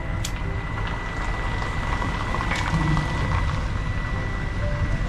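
A running machine: a steady low rumble with a thin, constant high whine over it and a few faint ticks.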